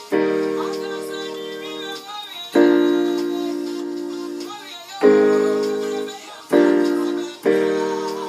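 Piano-voiced keyboard playing the left-hand backing chords of a gospel groove in the key of F: five sustained chords, each struck sharply and left to ring and fade.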